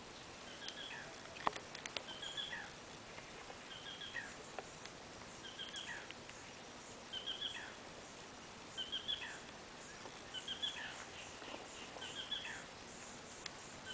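Black rail calling, repeating the same short phrase of a few quick notes about every one and a half seconds. There is a sharp click about a second and a half in.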